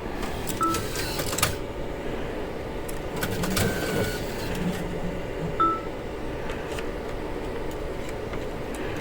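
ATM working through a cash withdrawal: a few short beeps, one a little longer about three and a half seconds in, with clicks and mechanical running over a steady hum.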